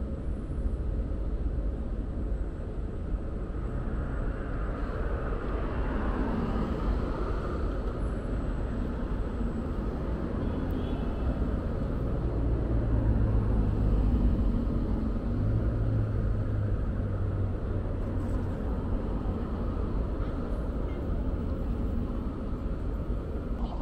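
City street traffic: a steady low rumble of road traffic with vehicles passing, swelling to its loudest about halfway through.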